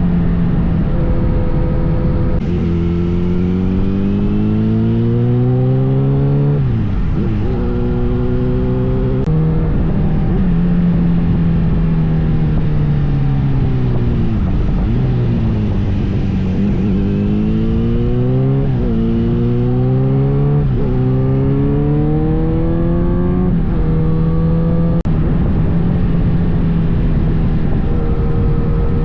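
Kawasaki Z900RS inline-four engine pulling under acceleration: its pitch climbs and drops suddenly at each upshift, eases down about halfway through, then builds again through several more shifts before holding steady near the end.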